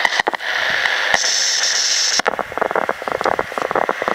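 Shortwave radio tuned between stations: steady hiss with brief cut-outs as it is retuned, then from about two seconds in a rapid, dense crackle of static.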